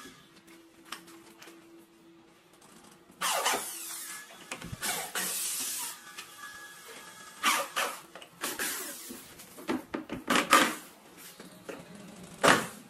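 Corded electric drill driving screws into a door hinge in several short bursts, with pauses between them; the last burst is short and sharp.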